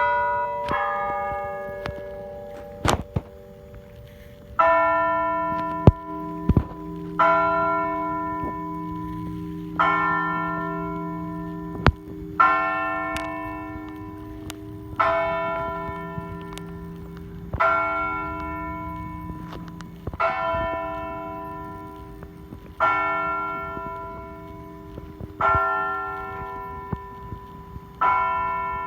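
Church bell ringing: after a couple of strokes near the start, the bell strikes steadily about every two and a half seconds from about five seconds in, each stroke ringing on and fading before the next. A few sharp knocks fall between the strokes.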